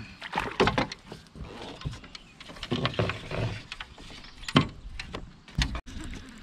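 Irregular knocks and clatter: a cluster about half a second in, more around three seconds, and a sharp single knock about four and a half seconds in.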